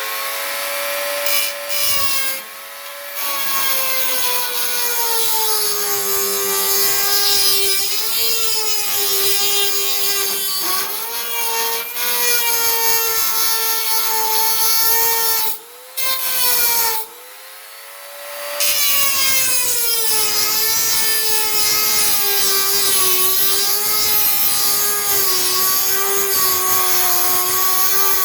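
Dremel rotary tool running at high speed, its whine wavering and dipping in pitch as the bit is worked against the car's bodywork. It eases off briefly a couple of times, the longest break about two-thirds of the way in.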